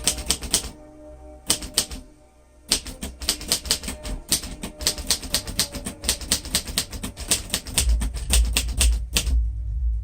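1947 Royal Quiet Deluxe manual typewriter being typed on: a few short runs of key strikes in the first two seconds, then a fast, steady run of keystrokes from about three seconds in that stops about a second before the end.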